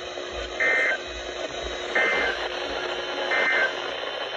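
Emergency Alert System end-of-message data bursts on NOAA Weather Radio: three short, shrill digital squawks about a second and a half apart over steady radio hiss, signalling the end of the warning broadcast.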